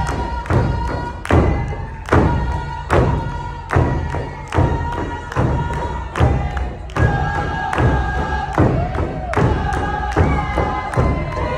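Tsimshian dancers singing their exit song together to a steady drumbeat, a little under two beats a second.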